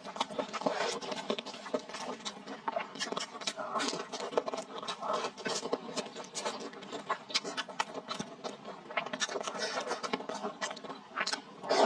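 Close-miked eating sounds of spicy fried rice noodles and a meat pie: wet chewing, lip smacks and slurps, a dense run of quick mouth clicks.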